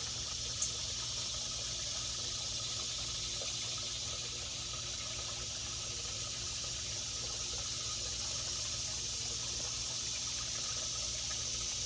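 Steady rushing noise like running water, even throughout, with a single brief click about half a second in.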